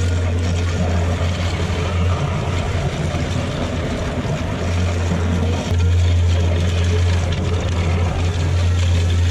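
Heavy wood-processing machine's engine running steadily under load, with a strong low hum and a rougher noise over it; it gets a little louder a bit over halfway through.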